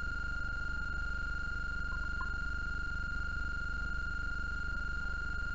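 Multimeter continuity buzzer sounding one steady, unbroken high beep as the probes bridge the TV's flyback output transistor: the sign of a fully shorted output transistor. A low electrical hum runs underneath.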